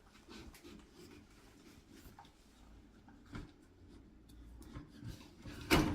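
Plastic parts of an electric pressure washer being handled, with faint rubbing and light clicks. Near the end comes one sharp, louder click as the spray gun snaps into its holder on the frame.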